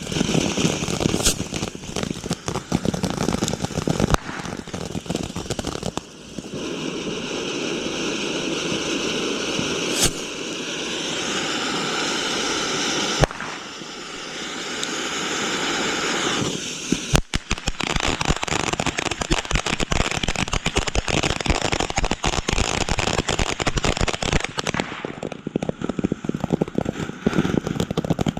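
Consumer fireworks going off: rapid, dense crackling pops for several seconds, then a long steady hissing spray, then dense crackling again.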